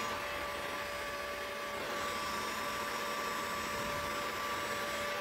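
Electric heat gun running steadily, its fan blowing with a constant whine, as it heats a heat-shrink hose clamp until it shrinks tight.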